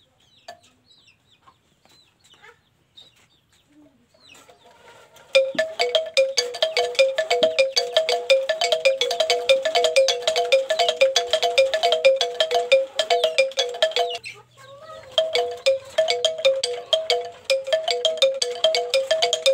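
Balinese bamboo gamelan windmill (pindekan cungklik) playing: bamboo hammers on its turning shaft strike tuned bamboo in a rapid, repeating two-note chime. It starts about five seconds in, breaks off briefly near fourteen seconds, then carries on.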